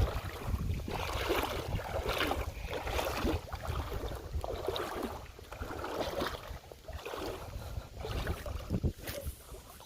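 Legs wading through shallow river water, a splashing slosh roughly once a second with each stride, over wind buffeting the microphone.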